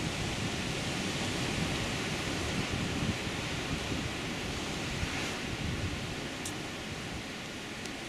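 Atlantic surf breaking on volcanic rocks and washing into a pebble cove: a steady hiss of waves with a low rumble under it, easing a little near the end.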